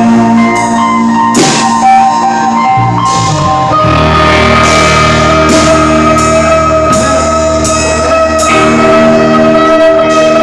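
Live rock band playing: sustained guitar chords over drums with cymbal crashes, the low end filling out about four seconds in.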